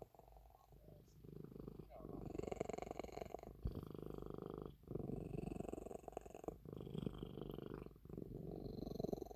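An old cat purring, the purr coming in phases of a second or two with brief breaks between them as it breathes in and out; softer for the first two seconds, then fuller.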